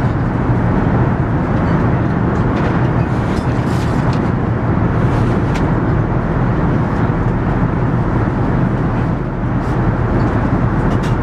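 Steady, loud cabin noise of an Airbus A380 under way: the even rush of its engines and the airflow, heard from inside the cabin.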